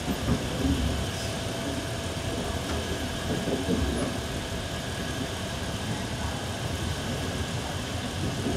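Steady rumble and hum inside an electric commuter train car while it runs, with faint passenger voices in the background.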